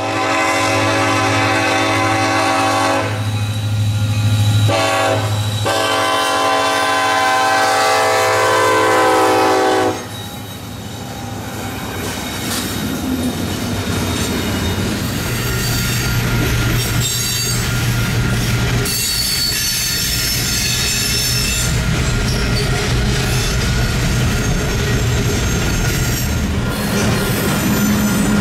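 Diesel freight locomotive horn blowing several blasts at a grade crossing over the engines' low drone, the last long blast cutting off about ten seconds in. Then the freight cars roll past with steady wheel noise, clacking over the rail joints, and a brief high flange squeal about twenty seconds in.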